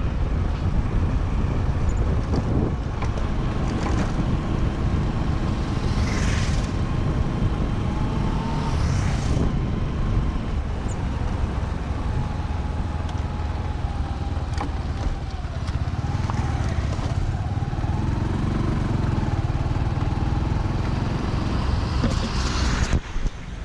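A motor vehicle travelling: steady engine and road rumble with wind buffeting the microphone. Two brief rushing sounds come about six and nine seconds in, and another near the end.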